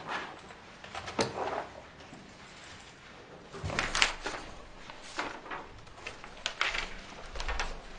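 A handful of separate knocks and clatters a second or so apart, the loudest about four seconds in.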